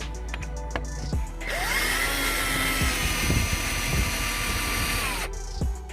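Cordless drill/driver spinning a bolt out: a few sharp clicks, then the motor whines up about a second and a half in, runs steadily for about four seconds and stops near the end, loosening the air-box cover bolts.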